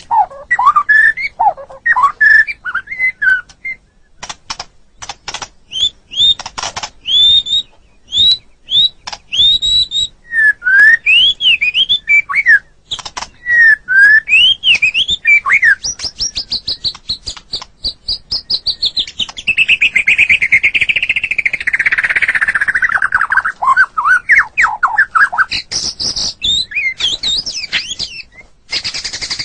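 White-rumped shama (murai batu) singing a loud, varied song: sharp clicks, then clear rising and falling whistled notes, then a long, fast trill that drifts down in pitch, ending in more whistles.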